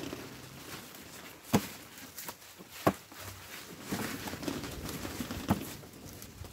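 Cucumbers being hand-picked into a plastic bucket: rustling of the vines and leaves, with three sharp knocks.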